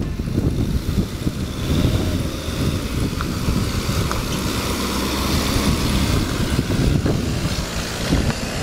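Ford Ranger double-cab pickup driving slowly over a rocky 4x4 trail, its engine running steadily under a gusty rumble of wind on the microphone.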